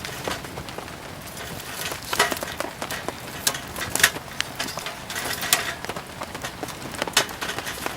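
Firewood burning with irregular crackles and sharp pops over a steady hiss of rain.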